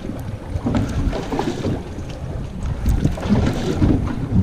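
Wind buffeting the microphone aboard a small fishing boat, an uneven low rumble.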